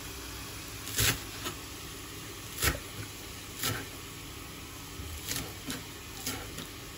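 Cleaver chopping green garlic stalks and celery on a plastic cutting board: about seven sharp, irregularly spaced knocks of the blade on the board, over a steady low hum.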